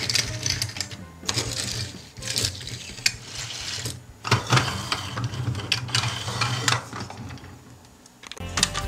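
Small die-cast toy cars being rolled and set down on a hard tabletop: a run of whirring, rattling wheel noise in several bursts of about a second each.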